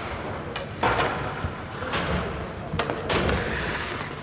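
Ice hockey rink sounds: three sharp knocks and scrapes about a second apart from players' skates and sticks on the ice.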